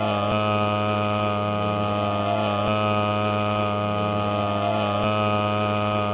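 A loud, steady droning hum of many layered tones, with a slight swell that comes back about every two and a half seconds.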